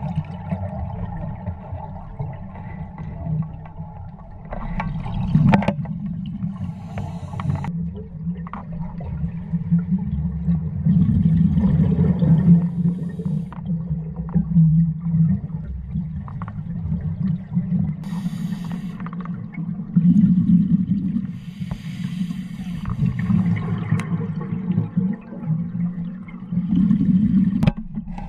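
Deep, muffled underwater rumble picked up by a dive camera, with a few bursts of scuba regulator breathing and exhaust bubbles.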